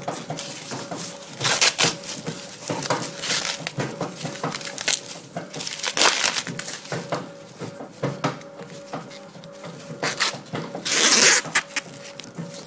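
Papery husk leaves of a strawberry popcorn cob crackling and tearing as they are peeled off by hand, in irregular bursts of rustling.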